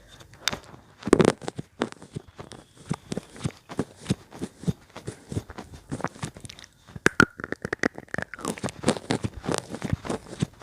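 Slate pencils being bitten and chewed close to the microphone: a quick, irregular run of sharp crunches and crackles. A brief high-pitched squeak sounds about seven seconds in.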